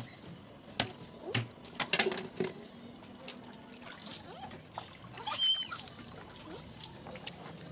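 Water splashing and trickling in a big plastic bin, with scattered small splashes in the first couple of seconds. A brief high-pitched squeal about five and a half seconds in is the loudest sound.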